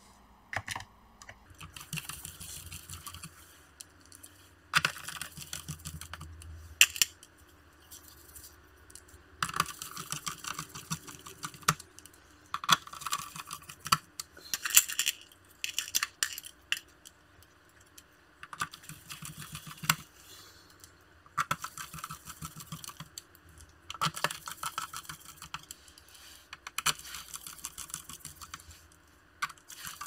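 Small screwdriver driving the screws back into an Acer Aspire 3 laptop's plastic bottom cover. It comes in short runs of rapid clicking and scraping, a second or two each, with pauses between and a few sharp single ticks.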